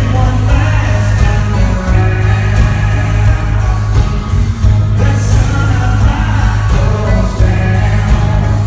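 Live country band with a male lead singer performing loud through a concert sound system: singing over a heavy, steady drum beat and bass.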